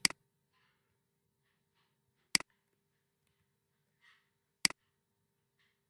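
Two sharp computer mouse clicks about two seconds apart, over a faint steady hum.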